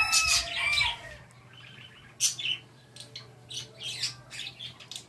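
Birds calling: a loud pitched call in the first second, then scattered short chirps, over a faint low steady hum.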